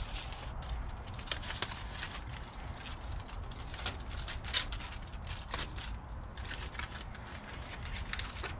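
Aluminium foil packets crinkling and clicking against a metal grill grate as they are handled and set in place: irregular small clicks and rustles over a steady low rumble.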